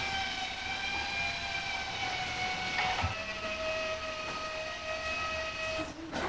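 A long, steady pitched tone held on one note, stepping down to a lower held note about three seconds in, then stopping just before the end.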